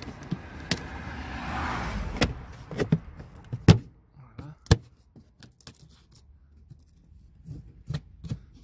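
A plastic cover being handled and fitted back in place: a scraping rustle of plastic, then a few sharp knocks and clicks, the loudest about four and five seconds in.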